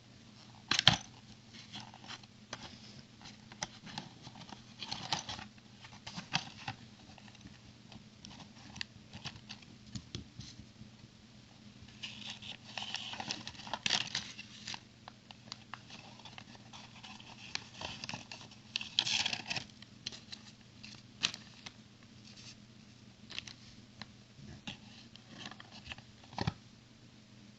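Packaging and plastic pieces of a building-brick toy set being handled: scattered clicks and taps, with two longer spells of crinkling or tearing, in the middle and about two-thirds through.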